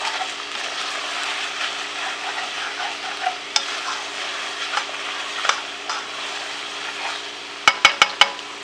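Macaroni and cheese sizzling steadily in a hot pot as it is stirred, with light scraping clicks from the utensil; the food has started to stick to the bottom of the pan. Four quick metal taps on the pot near the end.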